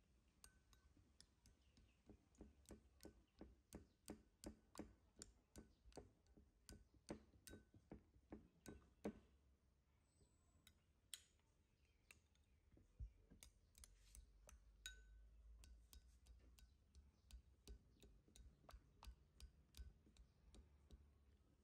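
Faint clinking of a metal spoon against a ceramic bowl as porridge is stirred: quick light taps, about two a second, thinning to scattered clinks after about halfway.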